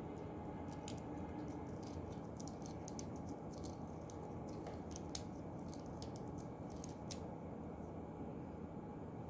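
Scattered light, sharp clicks and ticks, mostly between about one and seven seconds in, over a steady low hum.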